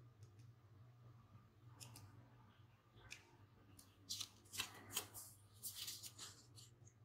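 Fine-tipped tweezers picking at a small sheet of laser-cut seatbelt buckles: a few faint ticks, then a cluster of quick clicks and scratchy rustles a little past halfway. A low steady hum sits underneath.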